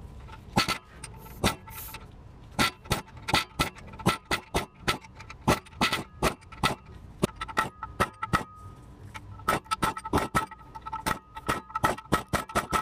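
Air hammer chiselling into an aluminium transmission housing in sharp, irregular metal-on-metal blows, a few a second with short pauses, each with a brief metallic ring. It is breaking a hole through the aluminium to reach a torque converter bolt that cannot otherwise be reached.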